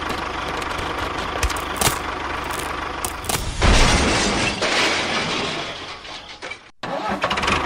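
Small engine or motor running steadily, with scattered clicks. A louder rushing noise comes in about three and a half seconds in and fades away near the end.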